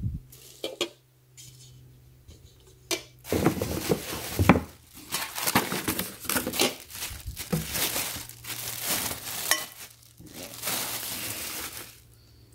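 A few light clicks, then from about three seconds in, a thin plastic bag crinkling and rustling as a stainless steel frying pan is pulled out of it, with a few knocks of the pan against the packaging.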